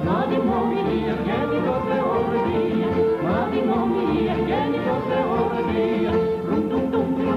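Yugoslav folk music: a folk orchestra with accordion accompanies a male-female vocal duet, with sliding, ornamented melody lines over a steady accompaniment.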